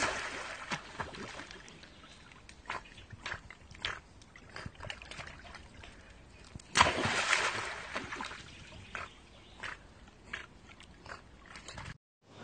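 A Jack Russell terrier plunges into muddy water. A splash is fading as the clip opens, and a second, louder splash comes about seven seconds in as the dog leaps from the bank again. Small sloshing and scrabbling sounds fill the time between.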